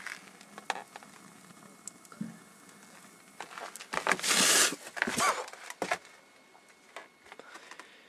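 Loudspeaker burning inside a microwave oven: its paper cone crackles and pops in the flames. The loudest part is a dense rushing crackle about four seconds in, followed by more pops.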